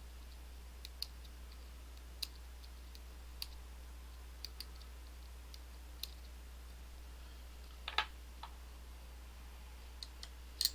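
Small metal parts of an EVVA ICS lock clicking as its sidebar and sliders are worked out of the plug with a small tool. Scattered light clicks, with louder clacks about eight seconds in and again near the end.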